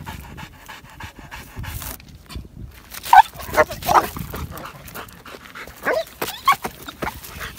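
Rottweiler panting quickly, then from about three seconds in letting out a series of short, high-pitched yelps while straining on its chain.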